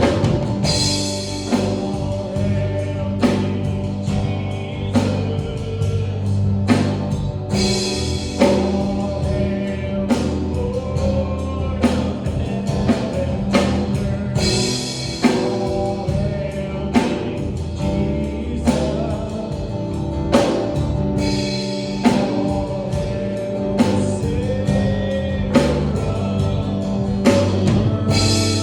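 Gospel worship music: singers over a band with drums and bass, keeping a steady beat with regular drum hits and cymbal crashes.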